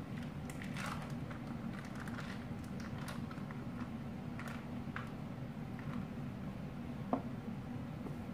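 Soft rustling and squishing of a plastic piping bag of whipped cream being handled, over a steady low hum, with one sharp click about seven seconds in.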